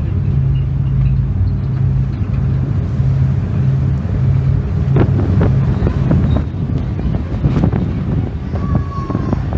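Low, steady hum of a ferry's engines running under way, with wind buffeting the microphone in gusts that grow stronger about halfway through.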